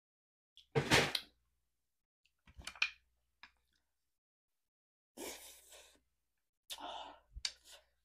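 Close-up mouth sounds of a person eating beef ribs: four short bursts of gnawing, sucking and breathy exhaling, the loudest about a second in.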